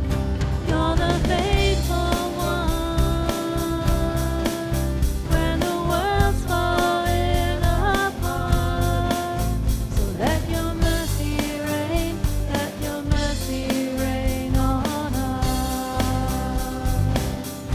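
Live church praise band playing a contemporary worship song with drum kit and guitars at a steady beat, while voices sing long held notes over it.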